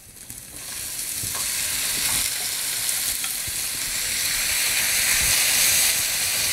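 Artichoke hearts going into a hot skillet with sautéing scallions, frying with a loud sizzle. The sizzle swells over the first second, then holds steady, with a few soft knocks from stirring.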